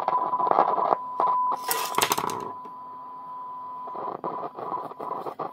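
Steady test tone from an AM signal generator heard through the Funksprechgerät f receiver's loudspeaker, broken by scratchy crackles as the volume control is turned. The crackling comes from the worn, dirty volume control, which clears with use.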